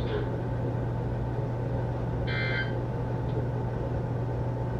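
Weather-radio receiver hiss with a steady low hum, broken about two seconds in by one short burst of EAS digital data tones lasting under half a second.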